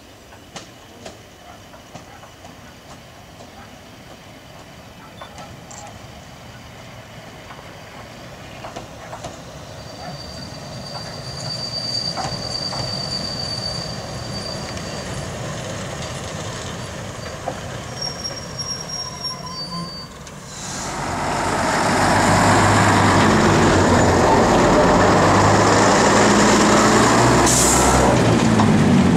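First-generation diesel multiple unit running slowly into a platform, its rumble growing louder, with a high squeal from the wheels or brakes as it slows. About two-thirds in, a much louder steady rumble takes over: a train passing close by, wheels on rail and a diesel engine drone.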